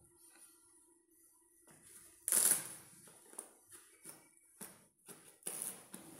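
Irregular short scuffing and rustling noises, the loudest about two and a half seconds in and another about five and a half seconds in, over a faint steady hum in the first half.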